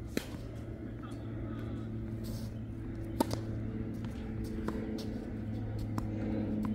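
A few sharp knocks over a steady low hum, the loudest about three seconds in; a low drone with several steady tones builds from about halfway through.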